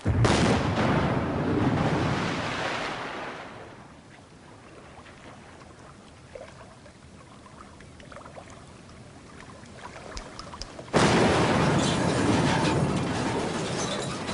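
Two hand-grenade explosions about eleven seconds apart: each a sudden loud blast that rumbles away over about three seconds.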